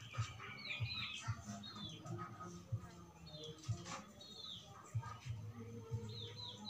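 Small birds chirping: short high chirps that slide down in pitch, heard several times, some in quick pairs, over a low background murmur.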